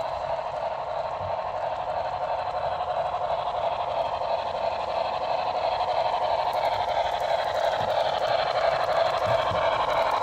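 HO-scale model of the Santa Fe 'Blue Goose' streamlined 4-6-4 steam locomotive running with its passenger train, its onboard sound playing a steady running sound through a small speaker. The sound grows a little louder as the train approaches, with fine clicks of wheels over rail joints from about halfway through.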